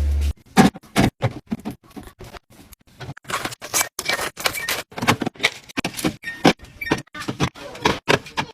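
A quick, irregular run of taps, clicks and knocks: containers, bottles and food packages being handled and set into a fridge while it is restocked.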